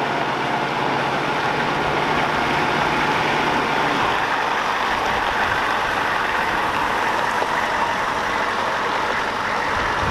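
Humvee's diesel engine idling steadily, heard close up, with a low hum under it for the first few seconds.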